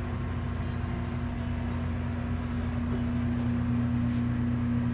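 Steady mechanical hum with a constant low tone and rumble, unchanging throughout.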